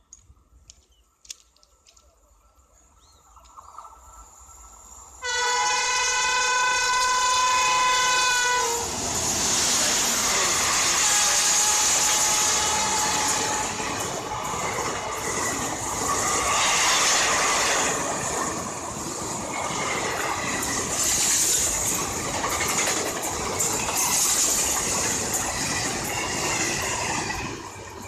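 An Indian Railways express locomotive sounds one long, steady horn blast about five seconds in, lasting about three and a half seconds. The train then passes close by at speed, its wheels rumbling and clattering over the rails for nearly twenty seconds before the noise drops away.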